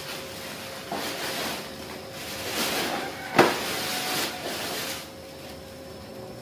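Plastic carrier bag rustling and crinkling as it is lifted and handled, with a sharp knock about three and a half seconds in. The rustling stops about five seconds in.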